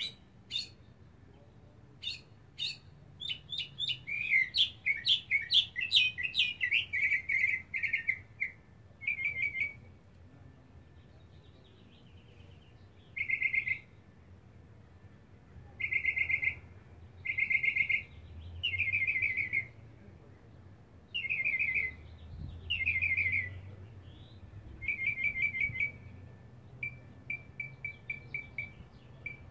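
Male mockingbird singing, which the owner takes for a lone male seeking a mate. A fast, dense run of high notes fills the first eight seconds or so, then comes a string of short phrases, each a quick series of repeated notes, with pauses of a second or two between them.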